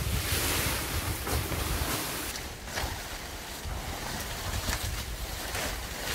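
Gusty storm wind rumbling on the microphone and hissing through the forest, with a plastic sheet crackling and flapping several times.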